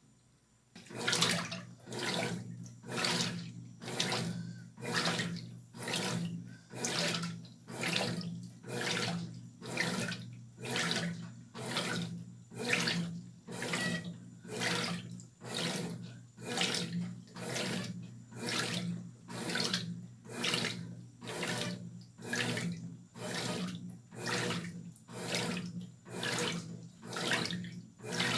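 Brastemp top-loading washing machine agitating a wash load: water sloshing in even strokes about once a second over a steady low motor hum. It starts about a second in, after a pause.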